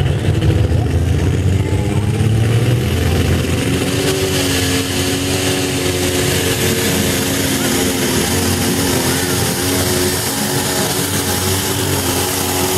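Turbocharged engine of a limited light super pulling tractor running steadily at low speed, loud: a heavy low rumble that eases after about three seconds into a steadier hum.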